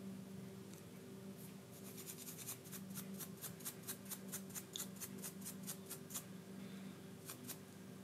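A small brush scrubbing the USB charging port of a replacement charging board to clear dirt from the connector. It gives a run of faint scratchy strokes, about five a second, starting about two seconds in and stopping around six seconds.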